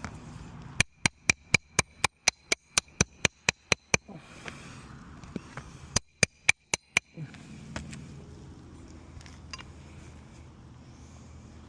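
Hammer striking metal in quick, ringing blows while replacing a roof shingle: a run of about a dozen strikes at roughly four a second, then a pause and five more.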